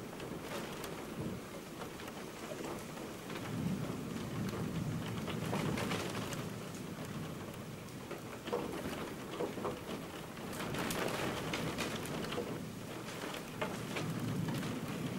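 Thunderstorm heard through a closed window: steady rain with sharp drop ticks, and low thunder rumbling that swells about four seconds in and again near the end.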